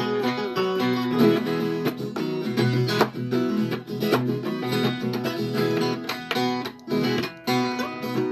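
Viola caipira playing an instrumental passage of quickly picked notes, with a brief break in the playing about seven seconds in.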